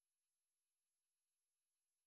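Near silence: only a faint steady electronic hiss with a thin high tone.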